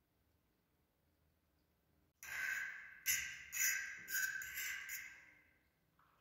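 Close-miked chewing of a mouthful of food: five or six wet, crunchy chews that begin about two seconds in and fade out before the end.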